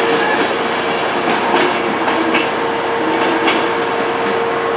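Chiltern Railways locomotive-hauled passenger coaches and driving van trailer running past on the rails, the wheels clicking over the rail joints now and then.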